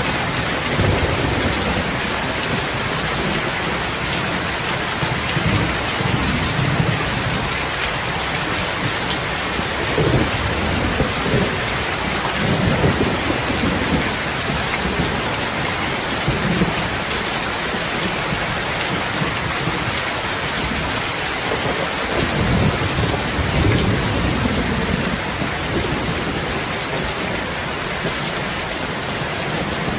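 Heavy rain falling steadily, with low rolls of thunder swelling and fading several times.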